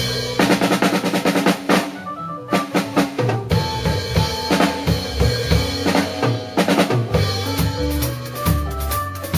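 Drum kit and percussion ensemble playing a Latin-style groove, with dense strokes over a held bass line and chords.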